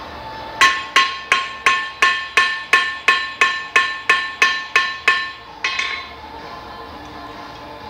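Hand hammer striking metal in a steady run of about fourteen blows, roughly three a second, each blow ringing. Two quicker, lighter blows follow near the end. The hammer is flattening a piece of aluminium into an oval.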